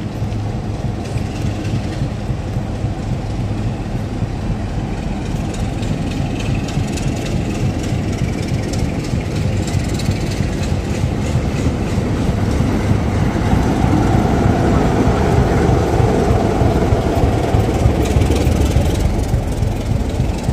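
Heritage diesel locomotive engine running, a steady low note that grows louder over the second half.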